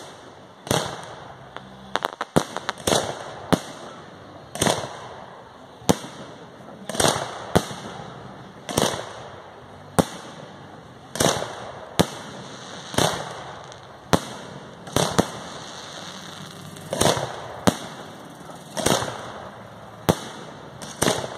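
Fireworks display: bursts going off one after another at about one sharp bang a second, each followed by a trailing echo, with a quick run of several bangs about two seconds in.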